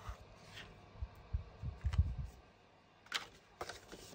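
Craft-table handling sounds: a few low bumps past the middle, then two short scratchy rustles as a sheet of cardstock is picked up off the cutting mat.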